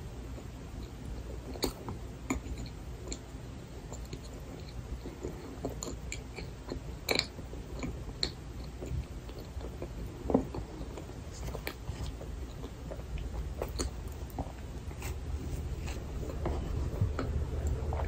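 Close-miked chewing of a frozen cream-filled milk bun: soft, wet mouth sounds and small clicks scattered irregularly, over a steady low hum.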